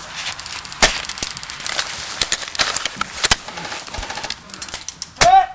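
Quick footsteps crunching and clattering over debris: a dense run of irregular clicks and crunches, with a sharper knock about a second in. A brief voice-like cry near the end.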